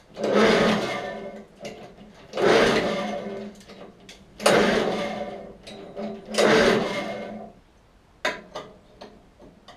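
Suffolk Punch 43S petrol lawnmower being pull-started: four hard pulls on the recoil starter about two seconds apart, each a loud whirr of the engine turning over that dies away without the engine catching. A few light clicks near the end.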